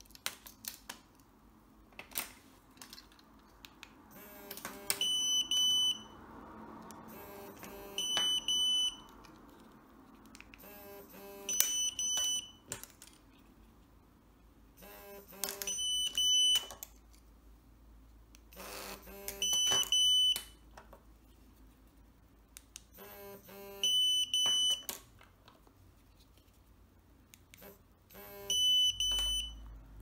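Pandora Multibrand 605 alarm tester beeping seven times, a high beep of about a second every three to five seconds, each time it receives and stores a car key fob's signal in auto-record mode. Short clicks between the beeps from key fob buttons being pressed and keys handled.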